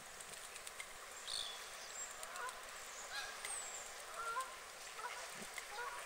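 Waterfowl calling on a lake: a series of short calls over steady background noise. A few thin, high chirps from small birds come about a second in and again midway.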